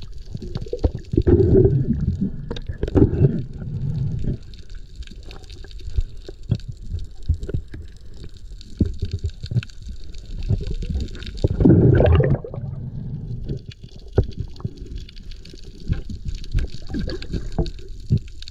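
Muffled underwater water noise: water swishing and gurgling past the camera, with scattered sharp clicks and two louder surges, one near the start and one about two-thirds of the way through.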